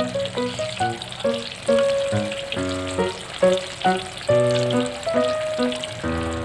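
Oil sizzling and crackling in a pan as batter-coated eggplant fries, under background music with a melody of short changing notes.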